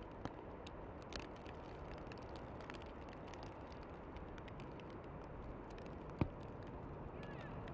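Outdoor ambience in a heavy snowfall: a steady soft rushing with scattered faint ticks, and one sharp click about six seconds in.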